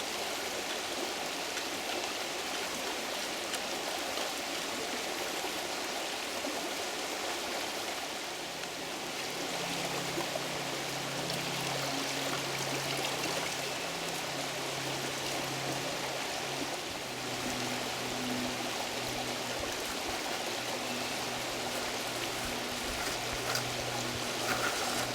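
Creek in flood, its water rushing steadily. A faint low hum joins about a third of the way in.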